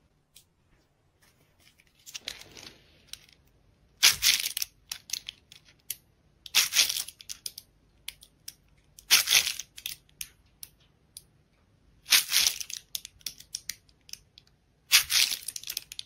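A shiny holographic wrapper crinkled by hand in short crackly bursts, about six times, with quiet pauses between.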